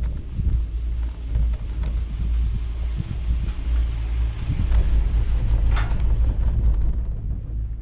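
Wind buffeting the microphone, a steady low rumble that rises and falls. One short sharp click cuts through about three-quarters of the way in.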